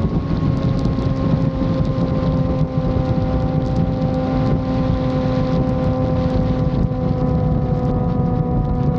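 Yamaha FZ6 Fazer 600's inline-four engine running at steady cruising revs, its pitch easing slightly lower over the first few seconds, with wind rumble on the microphone underneath.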